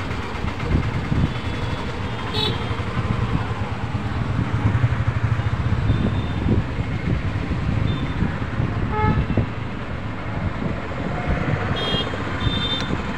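Steady road-traffic noise with a few short vehicle horn toots, one about two seconds in, one near nine seconds and another near the end.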